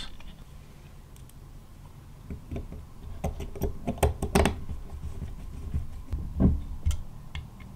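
Light clicks and taps of small metal and plastic extruder parts and a screwdriver being handled during assembly, starting about two seconds in, with a few sharper clicks in the middle and another near the end.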